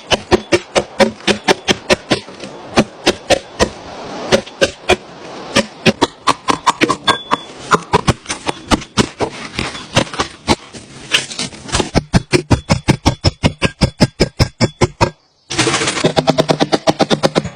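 A rapid series of sharp knocks, several a second, very even from about twelve seconds in, then breaking off for a moment before starting again louder.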